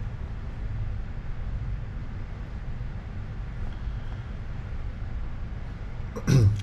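Steady low background rumble with no distinct events. A man starts to speak near the end.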